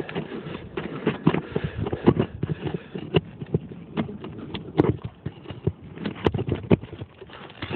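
Irregular knocks and scuffs, several a second, from hands and tools working on roof shingles.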